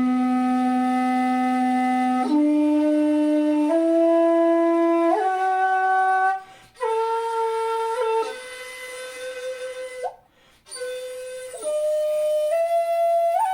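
Jinashi shakuhachi, a 2.0-shaku bamboo flute pitched in C, playing a slow rising scale of held notes, each about a second and a half long. There are two short breaks for breath, and one stretch in the middle is played softer. The scale climbs higher toward the end.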